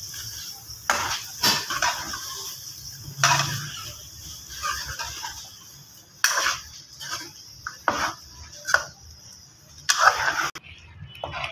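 Metal spoon scraping and knocking against a metal pan in irregular strokes as potato chunks are stirred and fried in masala, over a steady frying hiss that drops away near the end.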